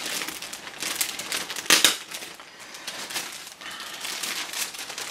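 Crinkling and crackling of plastic as a large plastic model-kit sprue and its packaging are handled, with irregular clicks and one sharper click a little under two seconds in.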